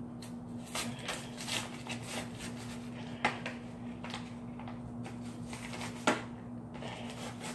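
Crinkling and clicking of a pack of Sharpie markers being handled and picked at to get it open, in short scattered bursts, with a steady low hum underneath.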